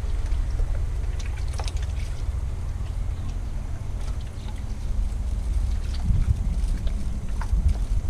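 Wind buffeting the microphone, a steady low rumble, with a few faint clicks as moss is handled.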